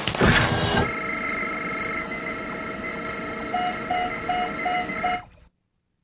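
A short noisy burst, then a steady electronic drone of several held tones, with a quick run of beeps near the end; it cuts off suddenly about five seconds in.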